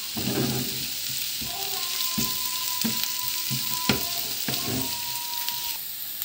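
Chopped onion and garlic frying in ghee in a frying pan: a steady sizzle, with a utensil stirring and knocking against the pan about seven times. The onion is being cooked only until soft and translucent, not browned.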